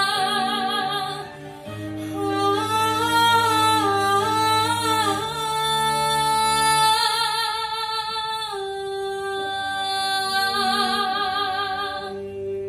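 A girl singing solo, her long held notes wavering with vibrato, over a backing of sustained low chords.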